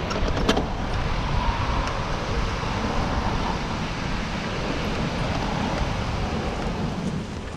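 Road traffic noise: cars going by, a steady rush of noise.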